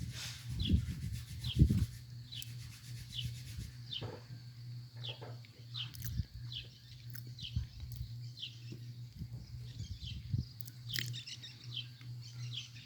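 A bird chirping over and over, short falling chirps about two a second, with a few low thuds in the first couple of seconds and a steady low hum underneath.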